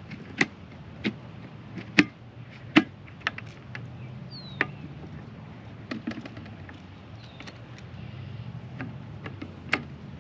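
About a dozen irregular sharp clicks and knocks, as from gear being handled, over a low steady hum.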